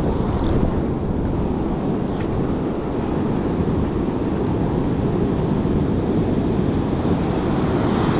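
Surf breaking and washing on the beach with wind buffeting the microphone, a steady loud rumble. There are two brief faint clicks in the first few seconds.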